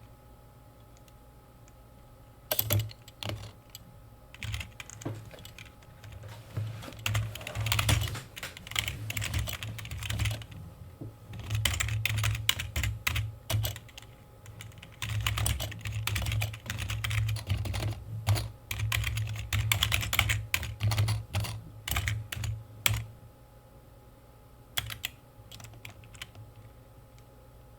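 Typing on a computer keyboard: a few scattered keystrokes at first, then long quick runs of clicking through most of the middle, broken by short pauses, thinning out to occasional keys near the end.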